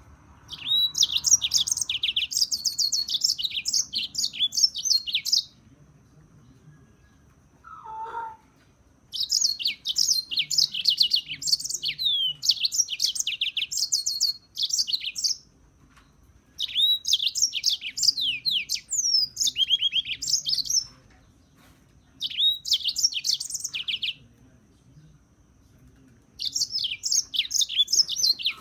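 A serin singing long phrases of fast, high twittering trills, five bursts of song separated by pauses of one to three seconds. A short lower chirp comes about eight seconds in.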